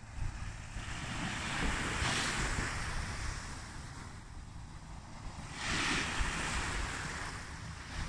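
Small waves washing onto a sandy beach, swelling about two seconds in and again around six seconds, with wind rumbling on the microphone.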